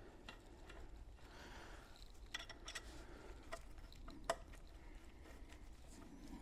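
Faint handling noise of a braided stainless fuel crossover hose and its fittings being fitted to the fuel rails: a few light clicks and clinks, the sharpest a little over four seconds in.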